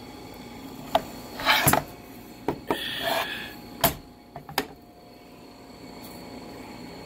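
Handling noises from a Kreg plunge saw on its guide track: a few plastic clicks and knocks, a short rattle and a scraping rub, with a sharp knock about four seconds in.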